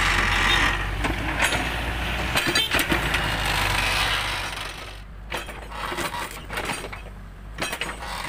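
A compact tracked excavator's engine running steadily. About five seconds in it gets quieter, and scattered clicks and knocks follow as the bucket works soil and wood around a tree stump.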